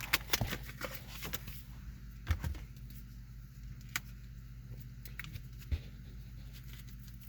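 Foil booster-pack wrapper being handled and worked at to tear it open: scattered sharp crinkles and clicks, over a steady low hum of the car cabin.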